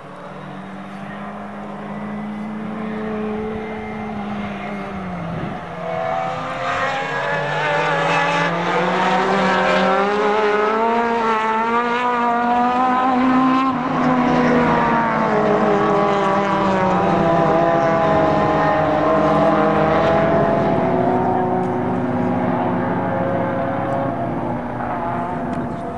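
A pack of circuit-racing saloon cars passing, many engines revving up and down through the gears at once. A single engine is heard first, dropping in pitch about five seconds in; the pack swells in about six seconds in and eases off near the end.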